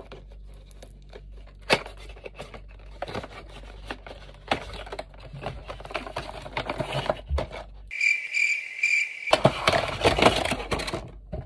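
Cardboard box and packaging being opened by hand: scattered clicks and rustles, building to dense crinkling and tearing near the end.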